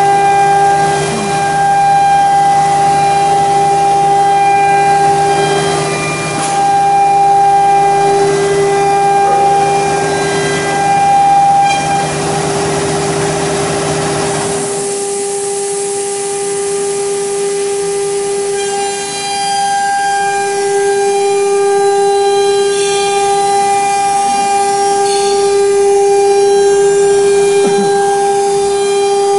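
OMNI 1325 CNC router's high-speed spindle running with a steady high whine while routing a wooden panel. About halfway through, a lower hum and rushing noise underneath drop away, leaving the spindle whine on its own.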